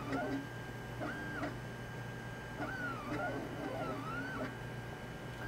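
3D printer's stepper motors whining as the print head travels: the pitch holds steady on longer moves and dips and rises in quick arcs on shorter back-and-forth moves around the middle, over a steady low hum.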